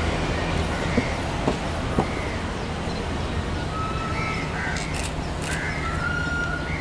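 Crows cawing several times, the calls coming more often in the second half, over a steady low rumble. A few sharp knocks come in the first two seconds.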